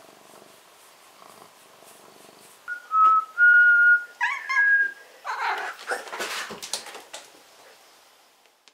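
A cat purring faintly, then a person whistling a few short, steady notes that step up in pitch, with a cat's meow breaking in among them. The whistling is followed by a couple of seconds of loud, scratchy rustling noise.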